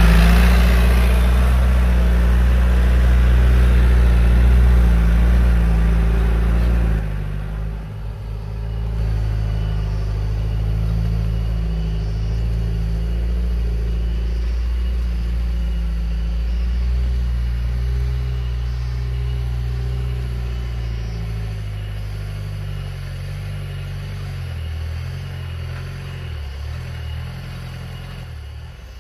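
Modified 1980s Hardtop jeep's engine running, loud at first, then easing off about seven seconds in and carrying on steadily, slowly fading.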